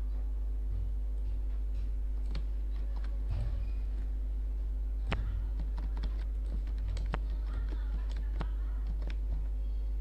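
Computer keyboard keys clicking in irregular, scattered strokes over a steady low hum.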